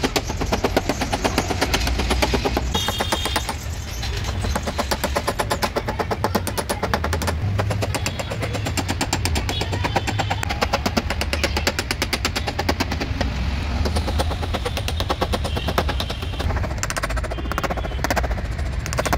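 Small hammer tapping a tap-down tool against the dented boot lid of a Kia Seltos in rapid, steady strikes, several a second, knocking the bent panel and its edge back into shape during paintless dent repair.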